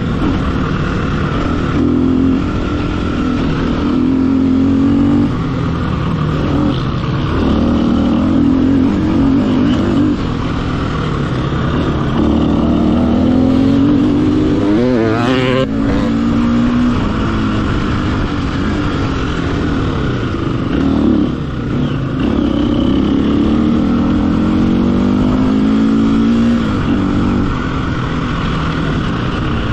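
Off-road dirt bike engine revving up and down continuously as the rider works the throttle and gears along the trail, with one sharp drop and rise in pitch about halfway through.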